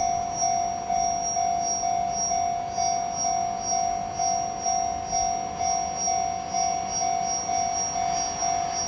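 Japanese level-crossing warning bell ringing, an even clang-clang of one tone about twice a second, the crossing's signal that a train is near.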